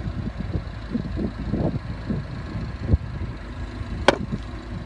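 Fuel filler door of a 2015 MINI Cooper S Countryman pushed shut by hand, closing with a single sharp click about four seconds in, over a steady low rumble.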